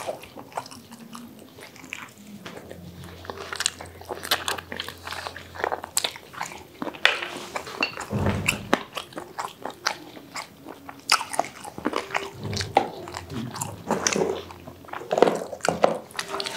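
Close-miked eating sounds: irregular crunchy bites and chewing of fried fast food.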